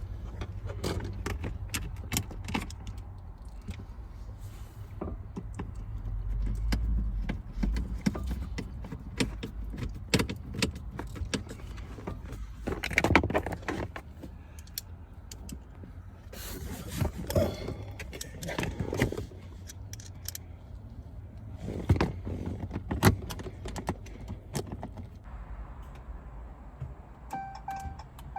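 Irregular clicking, clattering and jangling of parts and tools being handled during the push-button-start install in the truck's dash, with a short beep near the end.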